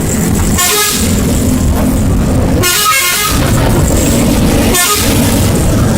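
Truck's telolet multi-tone musical horn sounding in three short bursts about two seconds apart, over the steady low running of the truck's engine.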